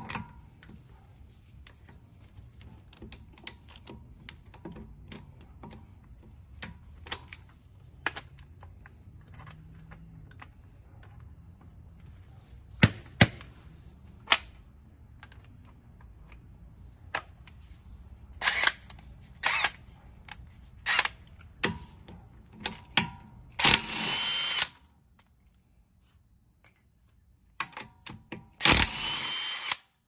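Cordless impact wrench running in several short bursts on a car's wheel lug nuts, the longest about a second, mixed with sharp clicks and knocks of socket and metal being handled.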